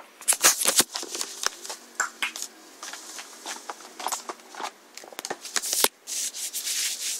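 Grey parrot eating a treat: irregular crunching clicks and scratchy scraping of its beak on the food, with a longer stretch of scraping near the end.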